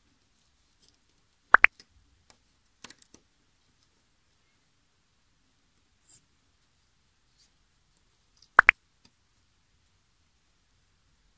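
Two short, sharp pops, each a quick double, about seven seconds apart, as wooden jigsaw puzzle pieces are set into the puzzle tray. Quieter clicks and taps of pieces being handled come between them.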